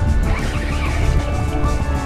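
Background music with steady sustained tones and a heavy low end.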